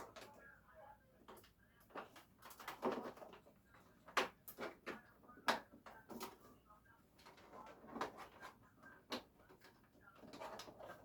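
Irregular clicks and knocks with light rustling: objects being handled at close range.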